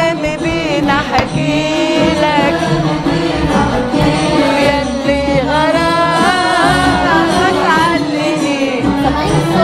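Arabic song: a solo voice singing long, ornamented melodic lines over steady instrumental backing.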